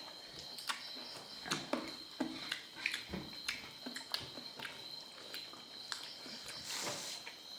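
Close-up eating sounds: chewing and mouth smacks in a string of short sharp clicks, with a brief rushing noise near the end over a steady high-pitched whine.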